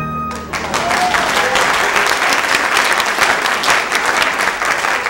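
The ensemble's last held note dies away about a third of a second in. Audience applause breaks out at once and continues.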